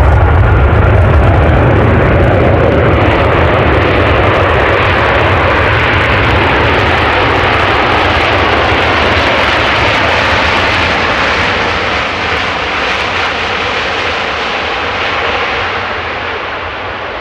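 Airbus A380's four Rolls-Royce Trent 900 turbofans at high thrust on the takeoff roll, a heavy low rumble under a steady jet roar. The sound is loudest at the start and slowly fades toward the end as the aircraft moves away.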